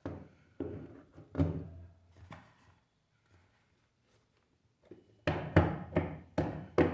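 Knocks and clicks from handling a camera speedlite flash and its packaging: a few soft thunks in the first couple of seconds, a pause, then a quick run of sharp clicks and knocks near the end.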